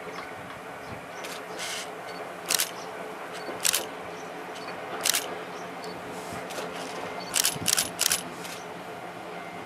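Camera shutters clicking about seven times, three in quick succession near the end, over the steady low hum of an approaching Kominato Railway diesel railcar.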